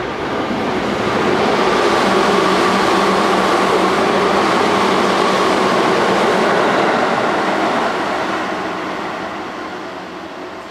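Seibu 10000 series limited express train running through the station without stopping: a rush of wheels on rail with a steady hum, swelling over the first two seconds, holding, then fading from about eight seconds in.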